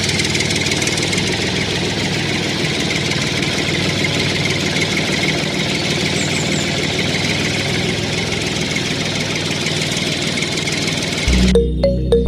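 A small motor running steadily with a dense, even whirr and a constant low hum. It cuts off about eleven seconds in, when electronic music with sustained synth tones begins.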